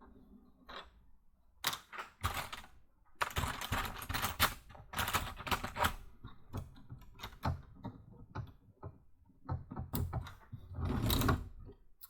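LEGO pieces clicking and clattering as they are handled and pressed together, in irregular bursts of sharp clicks. The busiest stretches are about three to six seconds in and near the end.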